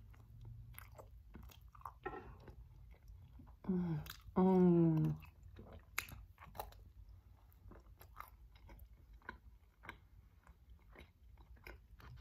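Close-miked biting and chewing of a soft slider bun filled with buffalo chicken and melted cheese: wet mouth clicks and smacks. About four seconds in, a short vocal sound and then a longer hum that falls in pitch.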